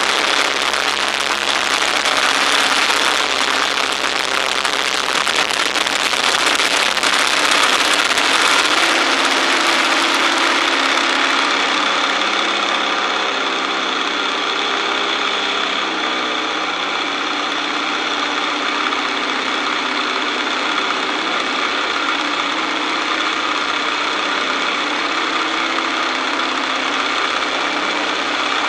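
Boeing-Stearman Model 75 biplane's radial engine running steadily in flight, under a heavy rush of wind on the wing-mounted camera. The sound eases slightly about twelve seconds in.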